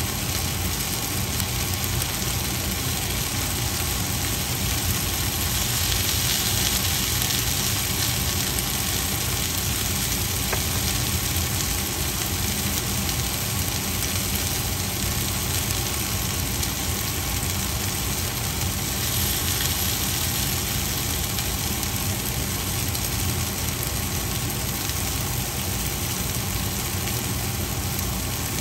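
Vegetables sizzling in a frying pan, a steady hiss that swells briefly about six seconds in and again near the twenty-second mark, over a constant low hum.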